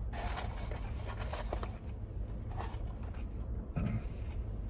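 Soft rustling and scraping handling noises, with a few short bursts, over a steady low hum.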